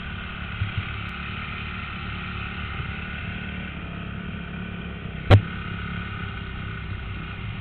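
Honda 250 dirt bike engine idling steadily, with a sharp knock about five seconds in.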